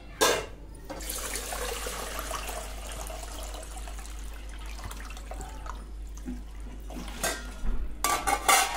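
Water splashing and swishing as a hand stirs in a steel bowl of water, slowly dying down. A sharp metal clink just after the start, and a few more clinks near the end.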